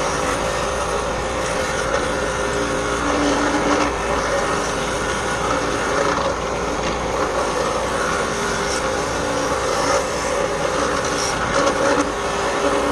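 An electric power tool running steadily, its motor humming under a scratchy grinding noise as it works the rusty steel of the pliers.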